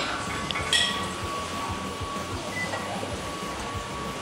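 Sharp metallic clinks of gym weight equipment, one at the very start and one just under a second in, over a steady hum.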